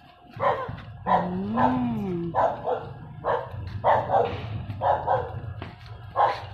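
A dog barking repeatedly, about once a second, some barks coming in quick pairs.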